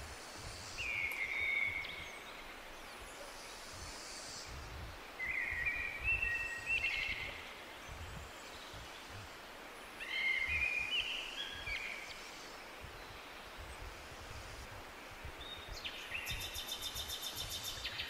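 A songbird singing short warbled phrases three times: about a second in, around six seconds and around ten seconds. A low wind rumble runs underneath. Near the end a fast, evenly pulsed high rattle starts.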